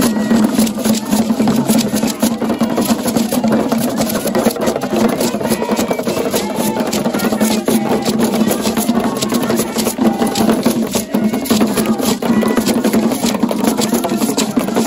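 Traditional Ghanaian drum ensemble playing: barrel drums beaten with sticks in fast, dense, unbroken strokes, with a beaded gourd rattle shaking along.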